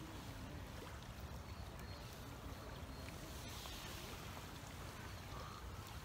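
Strong wind buffeting the microphone, a steady gusting low rumble, over the hiss of choppy water at the bank.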